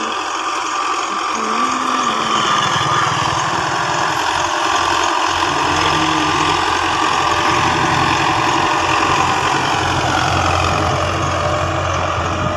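Belarus 510 tractor's diesel engine running steadily under load as it pulls a land-levelling scraper across tilled soil.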